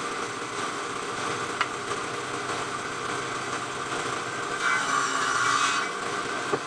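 Electric circular saw running and cutting through wood, a steady whine with the cut growing louder for about a second near the end.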